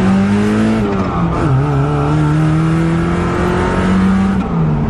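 Mazda Miata's four-cylinder engine accelerating hard on nitrous, heard from inside the car: the revs climb, drop at a gear change about a second and a half in, climb again through the next gear, and fall near the end.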